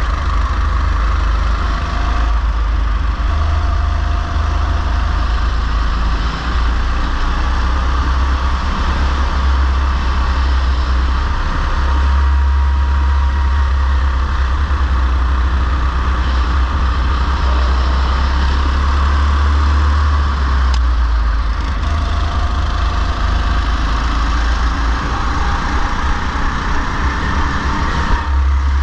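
Go-kart engine running continuously with a deep, steady hum, heard from onboard the kart as it is driven around the circuit.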